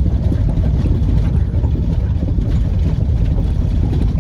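Steady low rumble of a vehicle being driven: engine and road noise.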